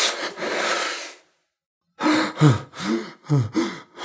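A frightened man's panicked breathing: about a second of rapid, breathy panting, a short silence, then quick voiced gasps, each falling in pitch, about two a second.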